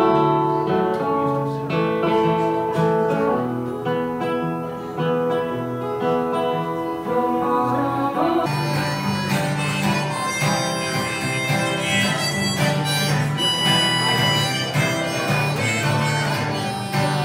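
Acoustic guitar music with a held melody line of steady, sustained notes over it. The sound changes abruptly about eight seconds in, as one recording gives way to another brighter one.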